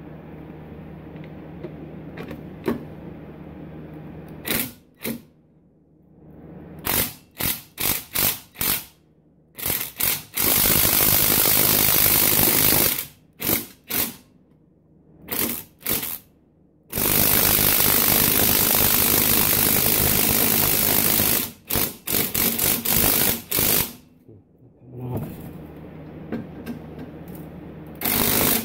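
Battery-powered impact driver hammering on the catalytic-converter-to-downpipe bolts through a long string of socket extensions. It starts about four seconds in with a series of short trigger pulls, then runs continuously twice for several seconds each, then gives more short pulls.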